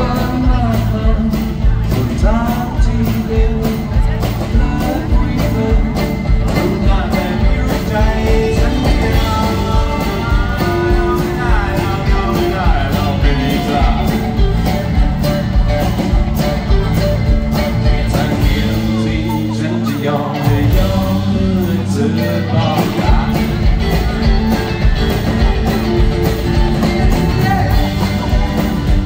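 Live rock band performing: a male singer singing over strummed acoustic guitar, bass and a steady drum beat. The drums and bass drop out for a few seconds about two-thirds of the way through, then come back in.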